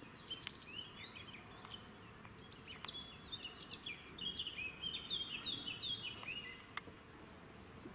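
Songbirds twittering faintly: quick runs of short, high chirps, some sliding in pitch, start about a second and a half in and go on until near the end, with a few light clicks among them.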